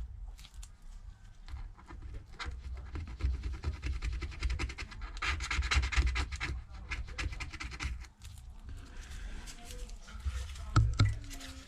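A hand tool scraping and rubbing old adhesive off the edge of an iPad mini 2 housing in quick, fine strokes, heaviest in the middle, with a short knock near the end.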